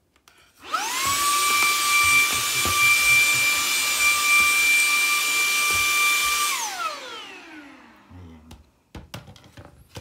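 Cordless handheld stick vacuum cleaner switched on. Its motor spins up with a rising whine, runs steadily with a high whine over rushing air for about six seconds, then is switched off and winds down with a falling whine. A few sharp clicks near the end.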